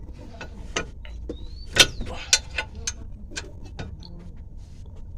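Irregular sharp metallic clicks and clinks of a 13 mm wrench working a tight brake caliper bolt loose, the loudest about two seconds in.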